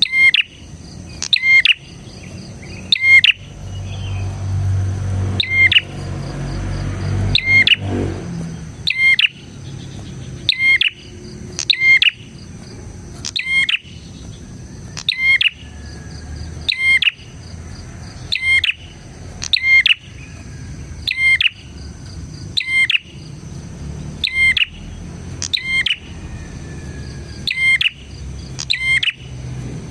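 Prenjak (prinia) calling: a short, sharp chirping call repeated about every second and a half, over a steady high insect-like whine. A low rumble rises in the background for a few seconds near the start.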